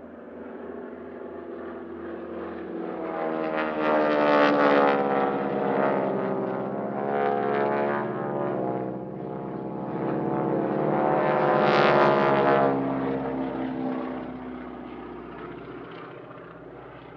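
Pratt & Whitney Wasp Junior R-985 radial engines of Boeing Stearman wingwalking biplanes flying past twice: each pass swells to a peak and fades, the pitch sliding down as it goes by. The team's grating roar comes partly from the propeller tips just exceeding the speed of sound.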